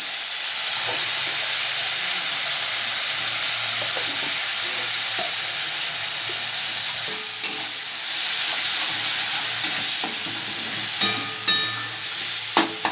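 Spiced masala frying and sizzling steadily in a pan as it is stirred. Around the middle and again near the end come a few sharp clinks and scrapes of the spoon against the pan, some briefly ringing.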